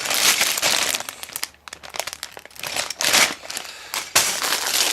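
Plastic bags of LEGO pieces crinkling as they are handled and lifted out of the box, in several bursts of rustling.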